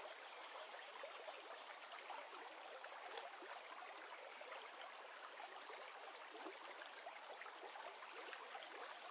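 Faint, steady running water with a fine, even babbling patter.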